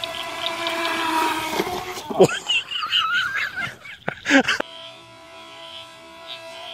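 Electric motor of an Aquacraft Minimono RC speed boat whining steadily as it runs on the water, then falling in pitch about two seconds in. Wavering pitched sounds follow and cut off abruptly about halfway through.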